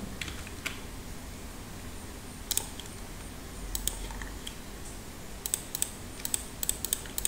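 Computer mouse and keyboard clicks over faint room hiss. There are a few single clicks, then a run of about ten quick clicks near the end as a value is stepped up.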